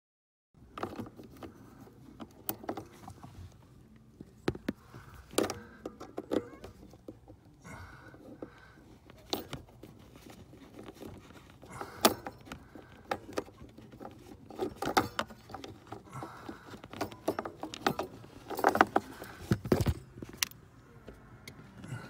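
Irregular clicks, rattles and knocks of hand work on a Land Rover Freelander's heater fan resistor unit under the dashboard: small plastic and metal parts, screws and the wiring connector being handled as the unit is taken out.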